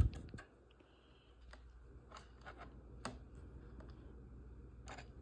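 Faint, scattered clicks and taps, about five in all at uneven intervals, from small model-kit frame parts and tiny screws being handled and fitted.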